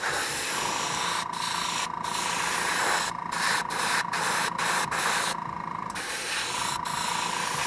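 Airbrush spraying white paint at high air pressure in bursts, its hiss cutting off briefly several times as the trigger is released, with a longer pause a little past halfway. A steady high whine runs underneath.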